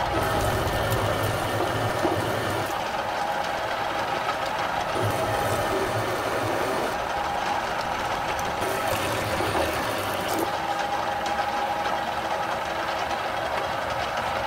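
Large drill press in low gear turning a 1.5-inch drill bit through thick steel plate: a steady machine hum with the grinding of the bit cutting, and a deeper hum that comes and goes every few seconds.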